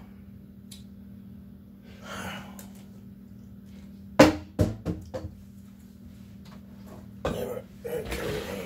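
Thin plastic gallon water jug crackling as it is handled and squeezed: one sharp crack about four seconds in, the loudest sound, then several smaller clicks. Breathy throat noises come before and after it.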